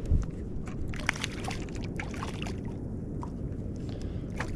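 Water splashing and sloshing, with many small irregular splashes and drips from a small sand bass thrashing at the surface on the line, over a steady low rumble.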